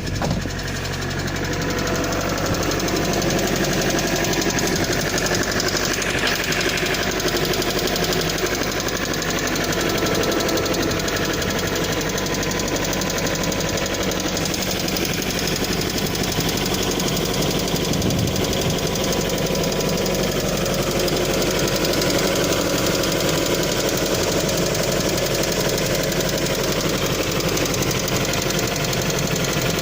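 Lada Kalina 2 Sport engine running steadily with a continuous fast ticking clatter from its hydraulic lifters, a lifter knock at 17,000 km.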